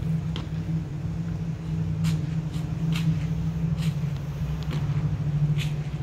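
Sharp slaps and clicks of M1 rifles being handled in a silent rifle drill, seven or so spaced irregularly about half a second to a second apart, over a steady low rumble.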